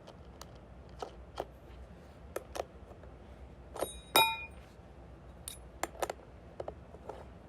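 Scattered small clicks and taps of objects being handled, with one ringing metallic clink about four seconds in.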